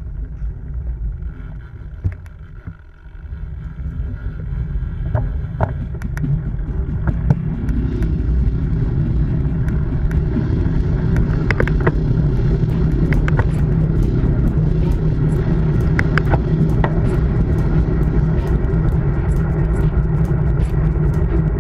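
Wind rushing over a bike-mounted action camera's microphone and tyre rumble from a road bike, getting louder over the first several seconds as the bike picks up speed, then steady. Many scattered sharp clicks and ticks run through it.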